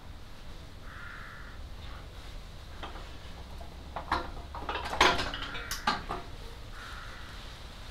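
Metal clinks and knocks of tools and parts striking one another, in a flurry that is loudest about five seconds in. Two short rasping sounds come in, about a second in and again near the end.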